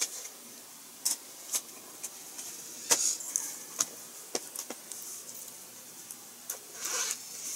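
Small plastic model-kit parts being handled and test-fitted: a string of light, sharp clicks and taps at irregular intervals, with a brief soft rustle near the end.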